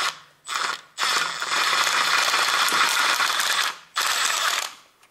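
Makita cordless impact wrench running in four bursts, the longest about two and a half seconds, as it loosens a bolt of a Honda Civic's lower engine mount.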